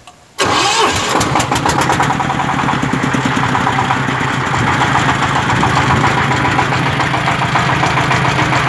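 Toyama 30 HP diesel engine starting on its electric starter about half a second in, then running steadily.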